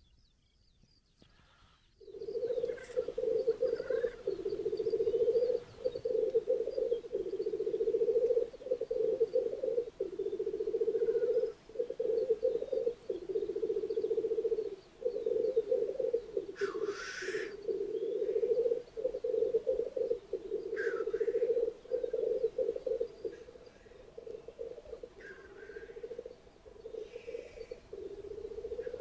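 Male black grouse lekking: a continuous low, bubbling cooing chorus (rookooing) that starts about two seconds in and carries on with brief breaks, with a few short hisses cutting in.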